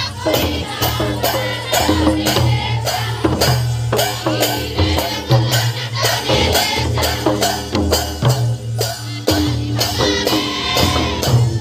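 Mandar drums, two-headed barrel drums, beating a steady folk-dance rhythm of about two strong strokes a second, with metallic jingling and voices singing over them.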